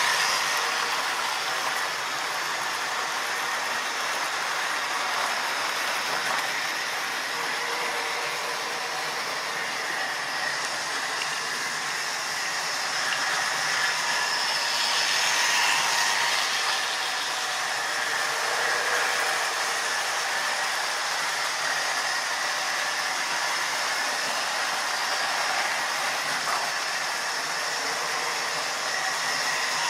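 Model railway trains running round the layout: the steady whir of small electric locomotive motors with the rattle of wheels on the track, swelling as a train passes close by near the start, about halfway and again at the end.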